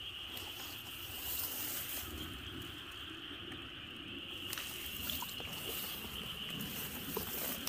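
Steady insect chorus, one even high-pitched buzz, over low rustling with a few faint small clicks.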